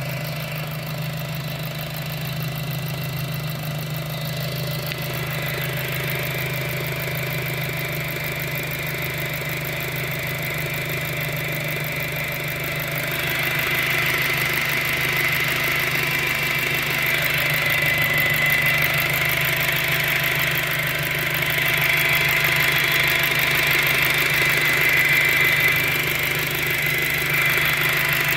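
2007 Volkswagen GTI's turbocharged four-cylinder engine running with a steady high-pitched whine that grows louder about halfway through. The whine persists after a new timing belt was fitted.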